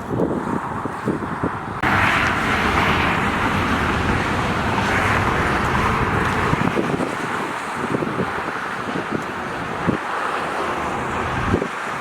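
Car driving at highway speed: steady rushing road and wind noise that gets louder about two seconds in.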